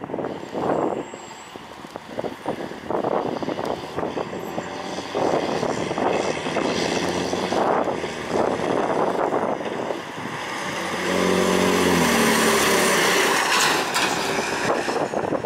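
Diesel engine of a Peterbilt 330 fire department water tanker driving past. The engine and tyre noise swell a little over two-thirds of the way in and hold for about three seconds before fading. Earlier, wind gusts buffet the microphone.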